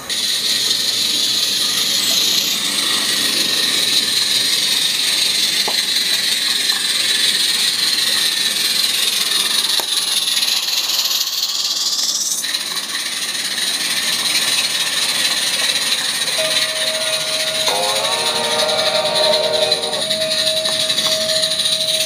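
Accucraft Ruby live-steam garden-scale locomotive running, with a steady steam hiss. A steady high tone sounds over the last few seconds, briefly joined by a chord of several tones.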